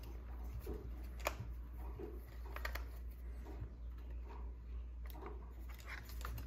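Light clicks and small scrapes of a Stihl 8 mm T-wrench turning the nuts on a chainsaw's air filter holder, with one sharper click about a second in, over a low steady hum.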